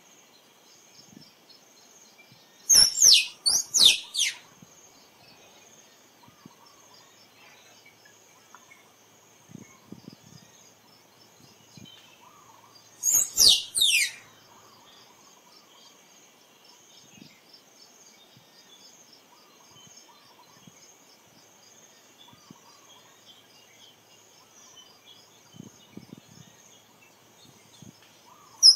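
Finlayson's squirrel calling in three loud bouts, about three seconds in, about thirteen seconds in and at the very end, each a quick run of sharp, high chirps that sweep steeply down in pitch. Between bouts a steady faint high insect drone.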